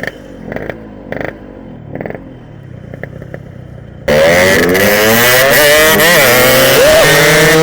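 Yamaha RX-King 135cc two-stroke single-cylinder motorcycle engine: quieter at first with a few short throttle blips, then about four seconds in it turns loud under hard acceleration, the pitch climbing and dropping back at each gear change.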